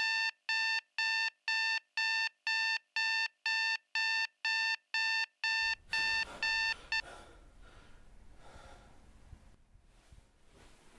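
Digital alarm clock beeping, about three short high beeps a second, which stop about seven seconds in; faint room noise and rustling follow.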